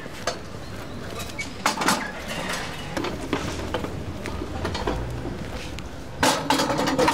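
Folding beer-garden table being handled: knocks and metallic rattles from its wooden top and metal legs, with one sharp knock about two seconds in and a burst of clatter near the end as it is set down on the paving.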